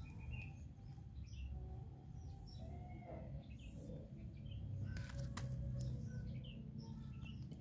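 Faint birds chirping in short, scattered calls over a steady low background rumble, with one sharp click about five and a half seconds in.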